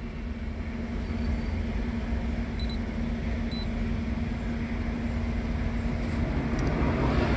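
Maruti Suzuki A-Star's 1.0-litre three-cylinder petrol engine idling steadily, heard from inside the cabin as a low rumble with a steady hum. Two faint short electronic beeps come about three seconds in.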